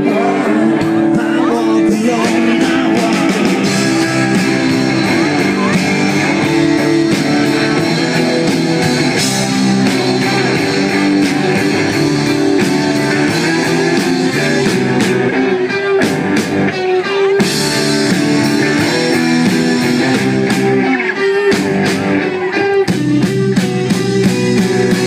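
Live rock band playing loudly, with electric guitars over a steady drum beat.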